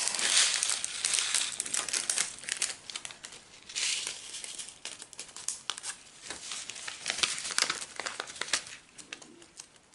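Foil packets of diamond painting drills and plastic storage bags crinkling as they are handled and opened, with many small sharp clicks and rustles; loudest at the start and again about four seconds in.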